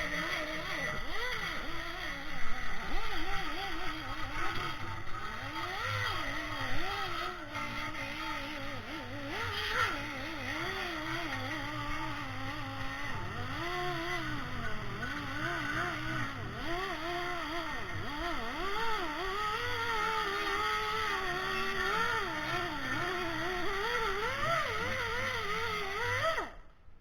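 A motor running with its pitch constantly wavering up and down, cutting off suddenly near the end.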